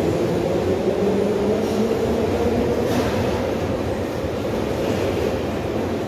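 Tashkent Metro train moving through a station, heard from inside the car: a steady rumble with a droning hum.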